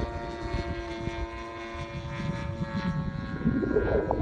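Vertigo 2M RC aerobatic plane's fuel-burning model engine and propeller heard in flight: a steady drone whose pitch eases down slightly. The engine is being broken in gently and runs a little rich. Wind rumbles on the microphone, rising to a louder rush of noise near the end.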